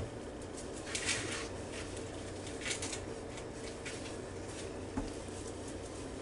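Faint handling and rustling as raw chicken quarters are placed into a slow cooker, with one soft thud about five seconds in as a partially frozen piece is set down in the crock-pot insert.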